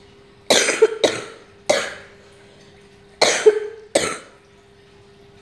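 A person coughing: three harsh coughs, a short pause, then two more.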